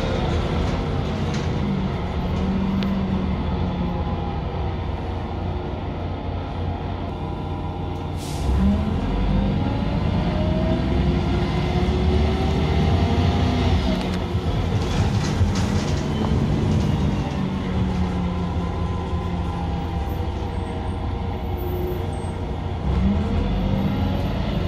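Irisbus Cityclass CNG city bus heard from inside the passenger cabin, its compressed-natural-gas engine running and rising and falling in pitch as the bus accelerates and changes gear. A short hiss of air comes about eight seconds in, just before the engine picks up. The engine picks up again near the end.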